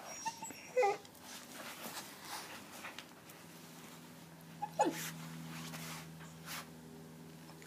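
A dog mouthing and chewing a plush squeaky toy. There is soft rustling, with two short pitched squeaks: a wavering one about a second in and a falling one near the five-second mark.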